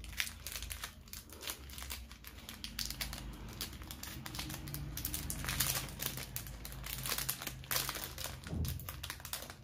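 Crinkly packaging rustling and crackling as it is handled, with many small irregular clicks.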